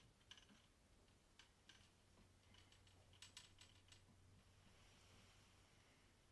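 Faint, light clicks and taps as a hand turns a picture frame on its round metal stand. They come scattered through the first four seconds, with a quick cluster about three seconds in, then stop.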